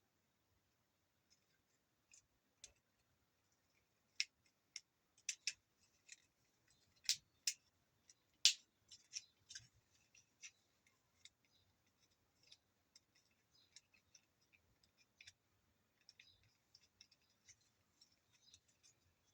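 Irregular sharp clicks and snips of small hand tools working on the plastic parts of a Dyson V10 stick vacuum during a switch repair. The clicks are loudest and closest together in the middle, then thin to lighter ticks.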